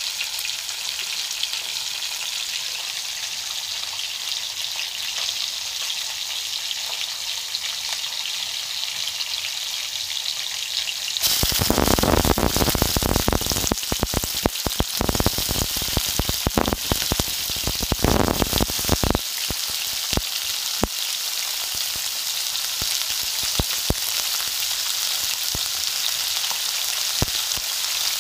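Ginger strips sizzling steadily in hot oil in a wok. About eleven seconds in, chopped red onion goes in and the frying turns suddenly louder, crackling and spitting for several seconds. It then settles back to a steady sizzle with occasional pops.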